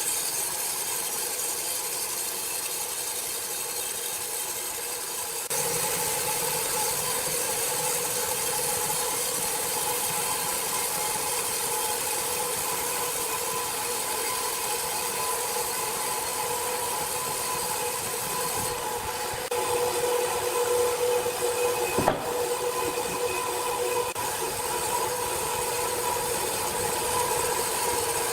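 Sawmill woodworking machinery running steadily: a continuous hiss with a humming drone. It steps up in level about five seconds in and again past the middle, and there is one sharp click near the end.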